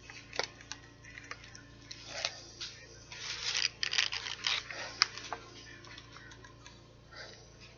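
Crinkling and clicking of a chocolate bar's wrapper being handled, in irregular bursts that are busiest in the middle.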